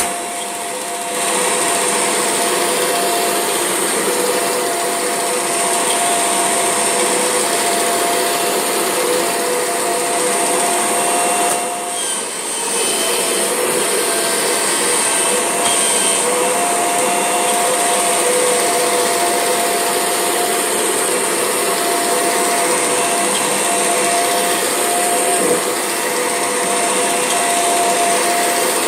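Kirby G6 upright vacuum cleaner running steadily with its drive belt lifted, making a strange noise: a steady motor whine with a high whistle over it, briefly dropping about twelve seconds in.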